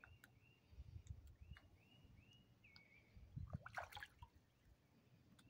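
A bird calling over and over with short, arching whistled notes, faint against low outdoor rumble. A little under four seconds in, a brief small splash as something breaks the water surface.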